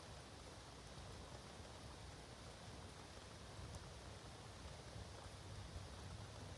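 Faint, steady rain pattering, with a few separate drops ticking now and then.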